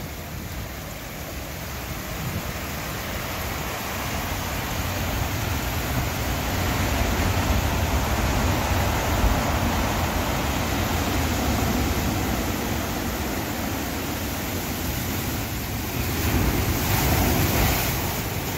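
Heavy storm surf breaking and washing, with the rush of seawater spilling over a seawall and across a flooded patio. The noise swells about halfway through and again near the end, as a wave surges over the wall.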